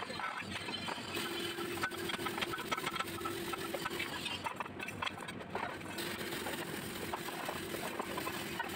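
Steady crackling and sizzling of MIG (GMAW) welding in a welding shop, with a faint steady hum that comes in about a second in and drops out for a while in the middle.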